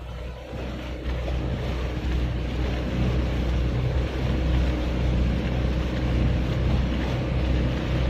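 Motorboat engine running at steady cruising speed, a low even hum, with wind and water noise over it as the boat moves across open sea. It grows louder over the first couple of seconds, then holds steady.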